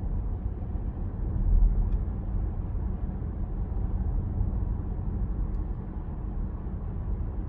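Steady low rumble of road and engine noise inside the cabin of a Peugeot 408 with the 1.2 PureTech three-cylinder petrol engine, while it is being driven. A louder low thump comes about a second and a half in.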